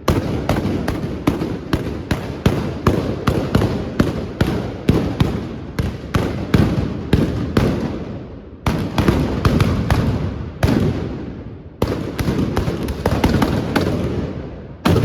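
Trabucs, the Catalan blunderbusses, firing blank gunpowder charges in a rapid, ragged volley of loud shots, two to three a second, many overlapping and each trailing off in echo. The firing breaks off briefly about eight and a half, ten and a half and twelve seconds in.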